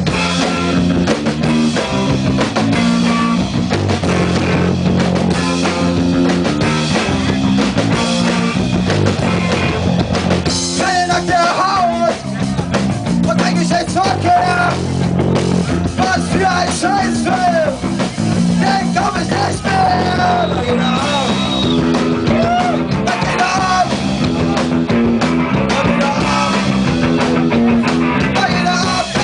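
Punk band playing live: loud distorted guitars, bass and drums without a break, with a singing voice on top from about ten seconds in.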